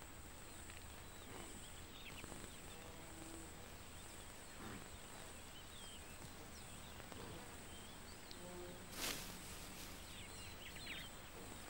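Faint outdoor wildlife ambience: a steady high hum, scattered faint chirps and a few short low calls, with one brief burst of noise about nine seconds in.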